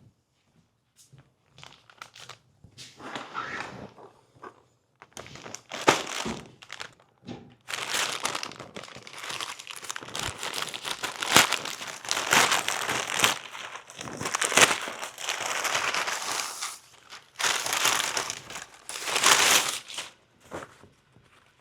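Packaging being torn open and crinkled by hand, in irregular crackly bursts that become dense and continuous after the first few seconds.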